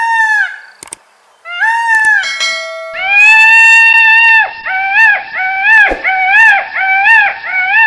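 Peacock calling: two short calls, one long held call, then a quick run of about five shorter calls in a row.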